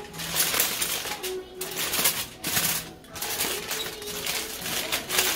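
Aluminium foil crinkling and crackling in uneven bursts as it is crumpled and folded by hand into a parcel.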